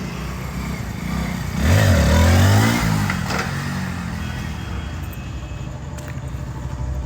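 Motor vehicle engine running steadily. About one and a half seconds in it swells louder for a second or so, its pitch rising and falling, as a vehicle passes close or revs.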